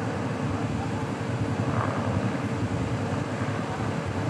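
Steady hum of a swarm of light-show drones hovering in formation, one even tone over a low rumbling outdoor background.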